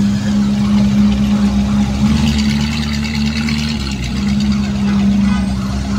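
Vehicle engine idling, a steady low drone that dips briefly about four seconds in.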